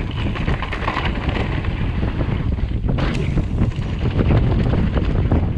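Wind buffeting the microphone as a steady low rumble, with a sharp crack about three seconds in.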